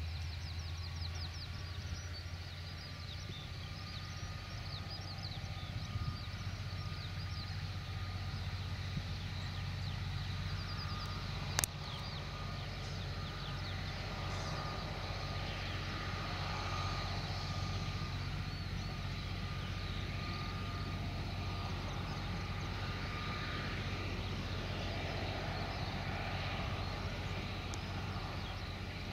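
Class 47 diesel locomotive's Sulzer twelve-cylinder engine running under load with a steady low drone as it hauls a train of coaches past. A single sharp click comes about twelve seconds in.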